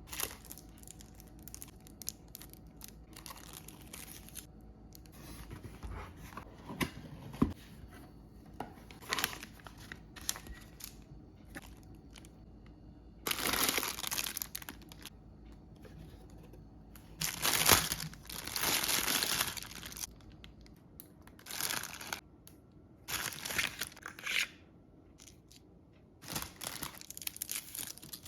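Hands handling packaging: crinkling and tearing in several bursts, with scattered light knocks and clicks between them.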